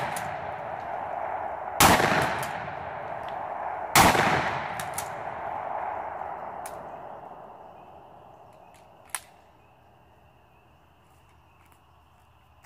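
Two blasts from an Iver Johnson PAS12 pump-action 12-gauge shotgun, about two seconds apart, the first about two seconds in. Each echoes and dies away over several seconds. A small click follows later.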